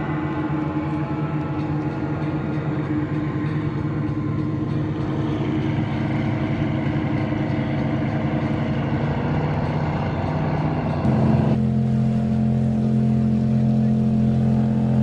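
Motorboat engines running with a steady drone. About eleven seconds in, the sound cuts abruptly to a different, slightly louder and steadier engine hum.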